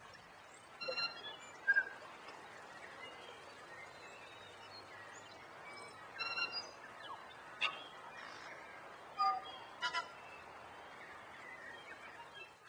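Faint steady hiss with about six short, high chirps scattered through it; the loudest comes just under two seconds in.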